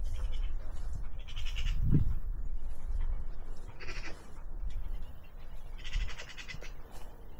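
A few short, rattling animal calls, about five, spaced a second or two apart, over a low rumble of wind on the microphone that swells about two seconds in.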